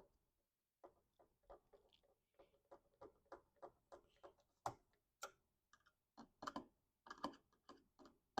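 Faint, irregular clicks and knocks, two or three a second, as the replacement power supply board and its screws are handled and fitted inside a Macintosh IIsi case.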